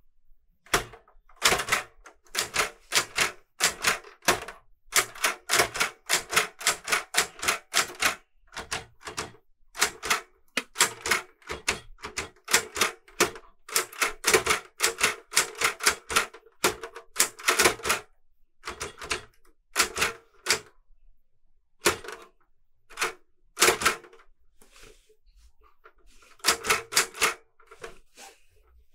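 Clover 810S manual portable typewriter with a Hangul keyboard being typed on: its typebars strike the platen in quick, irregular runs of keystrokes, with a few brief pauses.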